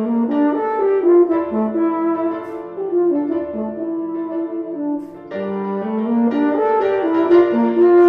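Euphonium playing a quick, agitated melody of short slurred notes, with a brief break about five seconds in.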